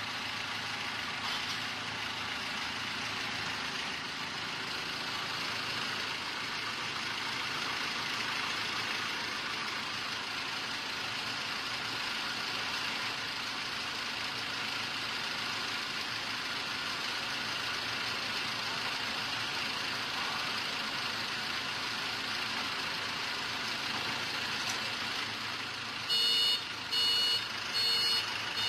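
Ricardo diesel engine of a 400 kW (500 kVA) open-type generator set running steadily. Near the end, a high electronic beeping starts and repeats a little faster than once a second.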